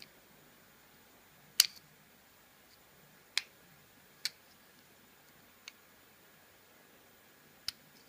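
Five sharp, irregularly spaced clicks as a thin tool is worked into a Master Lock 410 lockout padlock's hard plastic body; the loudest comes about one and a half seconds in.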